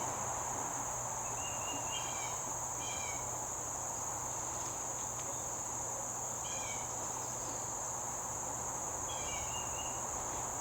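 Steady high-pitched insect trilling, like crickets, with a few short chirps now and then over it.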